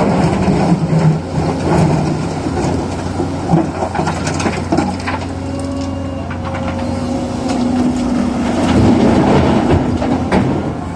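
Excavator working stone: the engine runs steadily under repeated knocks and clatter of rock.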